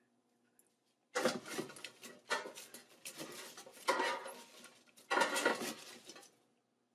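Cooked chips being tossed and turned with silicone-tipped tongs in the nonstick air fryer basket, rustling and scraping against the basket in about five bursts. The bursts begin about a second in and stop a little before the end.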